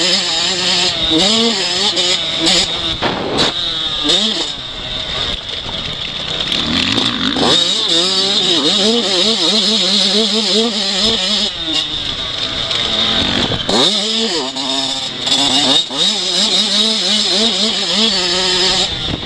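Yamaha YZ85 two-stroke motocross bike engine revving up and down again and again as it is ridden hard over a dirt track, heard from an onboard camera.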